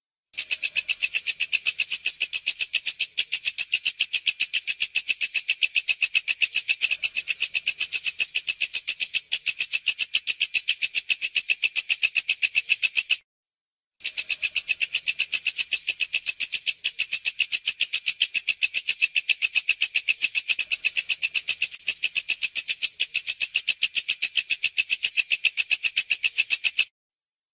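Walang kecek (a katydid, or bush cricket) singing: a loud, high-pitched trill of rapid, even pulses. It breaks off for under a second about 13 seconds in and again near the end.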